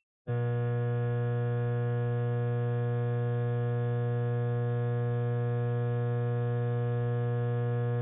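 Steady electrical hum-buzz, a strong low tone with many overtones, starting abruptly a moment in and holding unchanged.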